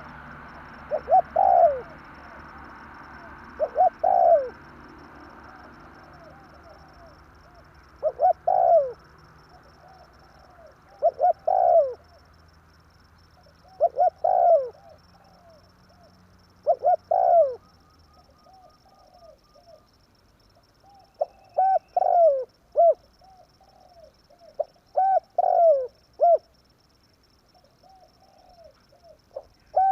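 Spotted dove cooing: its short phrase of low coos repeated about every three seconds, coming closer together in the later part. A trapper's lure call for wild spotted doves.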